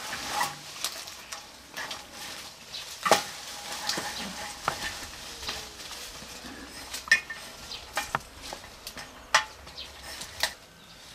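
Irregular sharp metallic clicks and clanks from long-handled hedge shears and an aluminium ladder being handled and climbed. The loudest knock comes about three seconds in.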